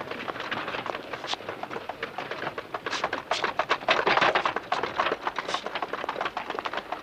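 Horse-drawn carriage going by on a cobbled street: hooves clip-clopping and wheels clattering over the stones. The clatter is loudest about four seconds in.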